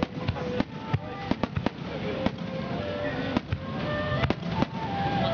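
Aerial firework shells bursting overhead in a rapid, uneven string of sharp bangs, a dozen or more, with music playing underneath.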